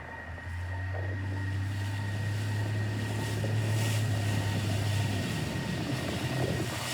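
Motorboat engine running steadily over wind and water noise, its low hum shifting slightly in pitch near the end.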